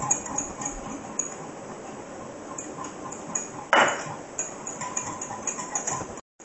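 Wire whisk clinking quickly against a glass measuring cup as tomato powder is whisked into hot water to make tomato paste. About four seconds in there is a louder knock as a small metal measuring cup is set down on the stone counter.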